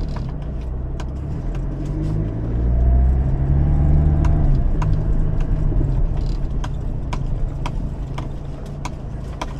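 Toyota Hilux pickup driving over a rough dirt track, heard from inside the cab: steady engine and tyre noise, with the engine note rising and getting louder about three seconds in. Frequent sharp clicks and rattles run through it as the truck bumps over the ground.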